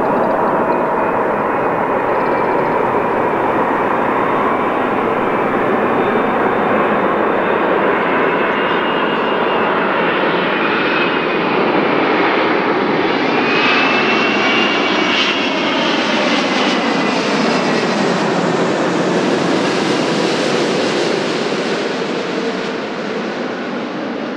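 Airbus A380-800 with four Engine Alliance GP7200 jet engines on final approach, loud and steady. Whining engine tones bend downward as it passes overhead about halfway through. The sound eases slightly near the end as it moves away.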